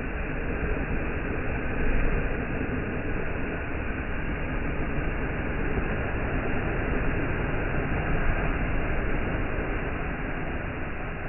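Steady rushing wind with a deep rumble, swelling and easing, played back slowed down.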